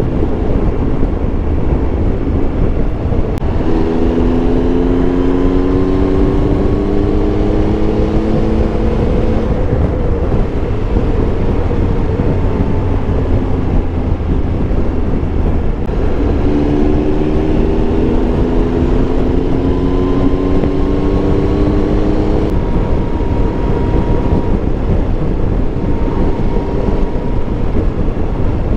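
Triumph Tiger Explorer 1200 three-cylinder engine running at road speed under a steady rumble of wind on the microphone. Twice the engine note climbs steadily for about six seconds as the bike accelerates.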